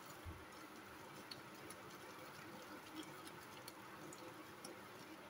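Faint, scattered ticks as a spatula stirs semolina dhokla batter in a glass bowl, mixing in the Eno fruit salt that makes it foam.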